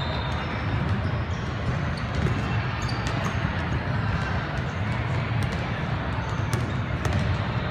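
Indoor basketball court ambience during a free throw: a steady low rumble of the big hall with murmur from players and spectators, and a few faint short ticks scattered through it.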